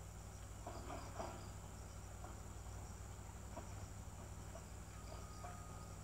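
Steady high-pitched drone of insects, typical of crickets, with a low hum underneath and a few faint short sounds about a second in.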